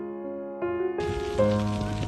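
Background music of sustained electric piano notes. About a second in, a steady hiss comes in beneath the music.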